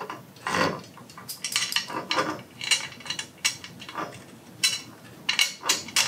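Irregular small metallic clicks and clinks of hardware being handled and fitted against the tubular metal frame of a glider chair during hand assembly.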